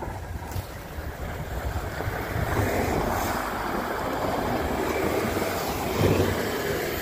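Passing road traffic, including a front-end loader, with tyre noise on a wet, slushy road. The sound swells about two seconds in and stays strong as the vehicles go by close. Wind rumbles on the microphone throughout.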